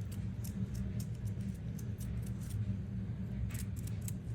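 Light scratchy ticks and rubs of a small hand-held cleaning tool scraping over an AirPod's plastic, over a steady low hum.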